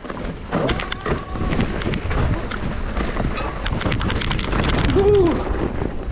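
Wind rushing over the camera microphone as a 2021 Giant Trance X 29 full-suspension mountain bike rolls fast down a dirt singletrack, its tyres running over dirt and roots with frequent clicks and rattles from the bike. A short tone that rises and falls comes through about five seconds in.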